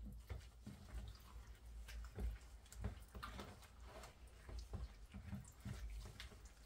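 Gloved hands mixing chicken pieces in a thick marinade in a plastic tub: faint, irregular wet squelches with small knocks of meat against the plastic.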